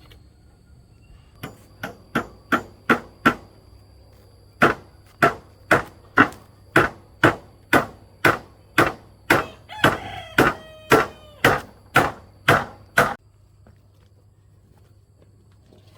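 A tool striking wood in a steady series of sharp blows, about two to three a second, stopping suddenly near the end. A rooster crows once partway through.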